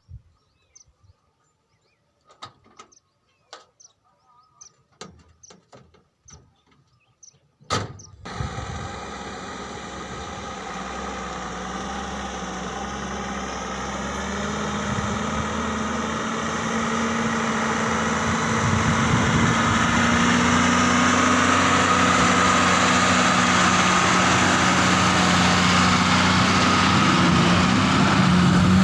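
A few faint scattered clicks, then about eight seconds in a heavy diesel engine comes in suddenly and runs steadily, growing louder over the next dozen seconds before levelling off.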